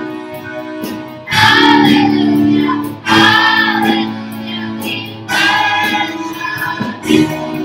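A group of children singing a song together over steady held keyboard chords. Loud sung phrases begin about a second in, again at about three seconds, and again at about five seconds.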